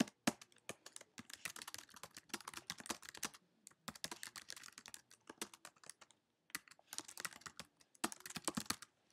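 Typing on a computer keyboard: fast runs of key clicks in four spells, with short pauses between them.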